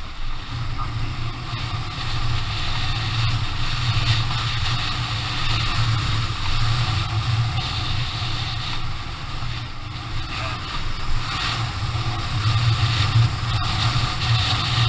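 Adventure motorcycle engine running steadily under way on a dirt trail, its level swelling a little as the throttle changes, with wind rushing over the camera microphone.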